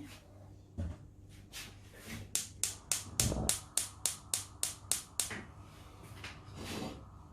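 Gas stove's spark igniter clicking rapidly, about four sharp clicks a second for nearly four seconds, as the burner is lit under the oil pan; a single low knock partway through.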